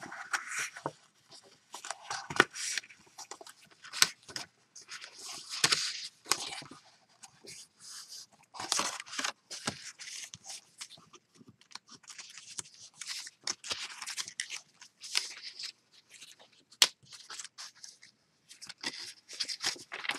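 Stiff cardstock being folded along its score lines and creased by hand: irregular rustling and crinkling of paper, with a few sharp clicks.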